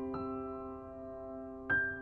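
Gentle background piano music: held notes ringing and slowly fading, with a fresh chord struck near the end.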